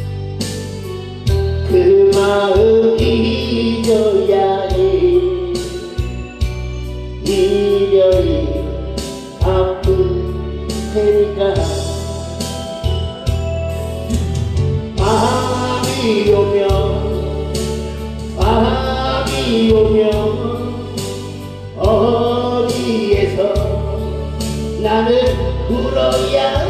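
A male singer singing a slow ballad into a headset microphone over accompaniment with a steady bass beat, his long notes bending and sliding in pitch.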